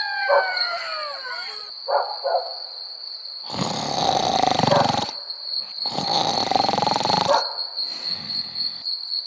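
A steady, high insect chirring, like crickets at night. Over it a howl falls in pitch and fades out within the first two seconds, then two rough, noisy sounds follow, each about a second and a half long.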